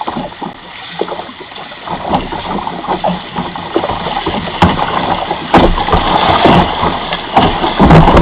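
Fast river water rushing and splashing close around a kayak as it runs a shallow rocky rapid, with many short splashes and slaps against the hull. It grows steadily louder toward the end.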